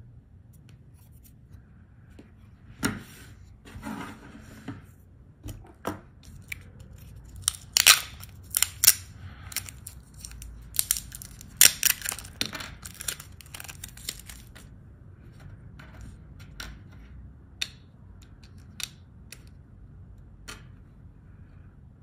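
Irregular sharp snips and clicks of small hand tools and parts being handled on a workbench, in bunches, loudest in the middle stretch and thinning out towards the end.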